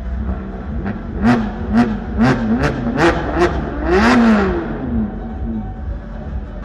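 Ferrari California's V8 revved in about six quick blips, each rising and falling back, then one longer rev that drops back to a steady low idle.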